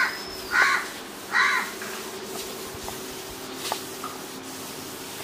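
A crow cawing three times in quick succession, harsh short calls less than a second apart.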